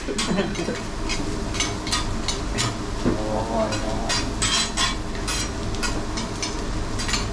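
Fried rice sizzling on a teppanyaki steel griddle, with metal spatulas scraping and tapping against the plate in quick irregular strikes.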